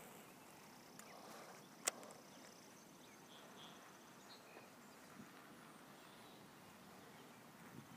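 Near silence: faint outdoor ambience with a few faint chirps and a high faint ticking, broken by one sharp click about two seconds in.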